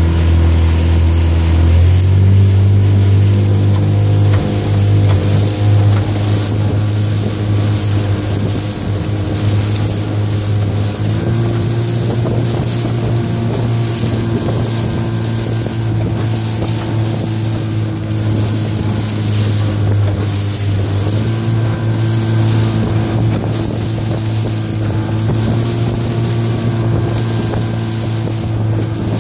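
A new Yamaha 25DM outboard motor on its first run, driving a small boat along at a steady speed. The engine note steps up slightly about two seconds in and again around eleven seconds, with wind noise on the microphone.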